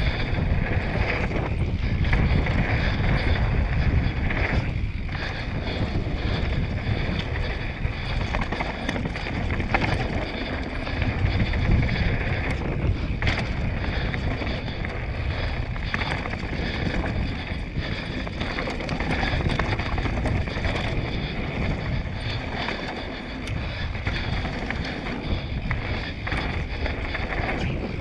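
Mountain bike riding fast down a dirt singletrack. Wind rumbles on the bike-mounted microphone, and tyre and trail noise run steadily throughout. Short clicks and knocks from the bike over bumps are scattered through it.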